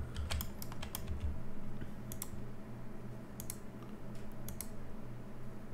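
Irregular clicks of a computer mouse and keyboard, coming singly and in small clusters, over a faint low hum.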